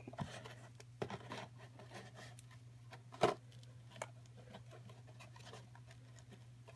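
A model toy's cardboard box and packaging being handled and worked open by hand: scattered light scrapes and clicks, with one sharper knock about three seconds in, over a steady low hum.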